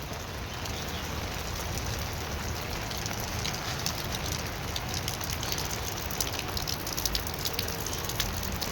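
Heavy rain falling steadily, with many small drop ticks spread through it.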